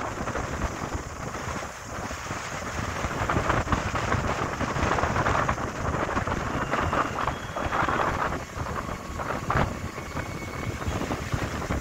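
Wind buffeting the microphone of a phone carried in a moving vehicle, a steady rushing rumble that flutters in strength, with no engine note standing out.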